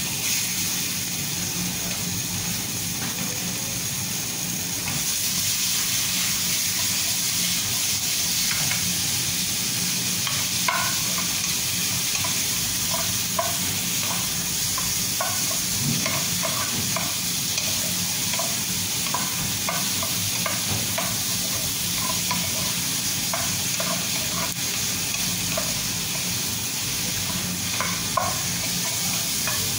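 Chicken pieces sizzling in a hot frying pan while a spatula stirs them, scraping and clicking against the pan. The sizzle gets louder about five seconds in.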